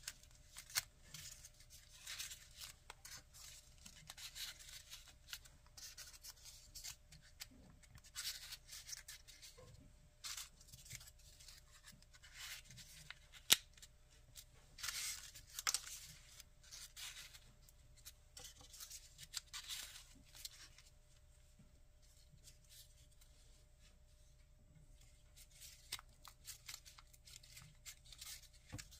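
Folded white paper origami units rustling and crinkling as hands press and slot them together, in irregular crisp bursts with one sharp click about halfway through and a quieter stretch later on.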